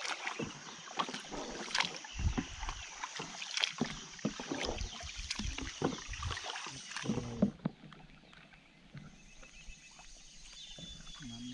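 Wooden canoe being paddled on a river: a run of short paddle splashes and knocks in the water and against the hull, thinning out about seven and a half seconds in.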